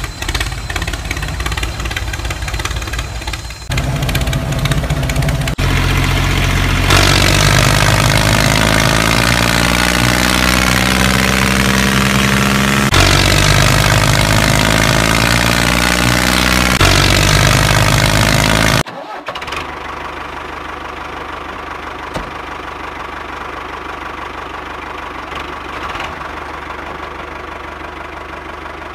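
Tractor engine running, cut together in several pieces: louder and revving through the middle, its pitch sliding down and back up, then dropping abruptly to a quieter steady idle about nineteen seconds in.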